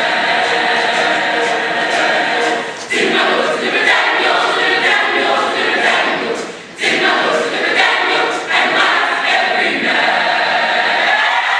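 Gospel choir singing a spiritual in full harmony without instruments, holding chords broken by two brief pauses, about three seconds in and again near seven seconds.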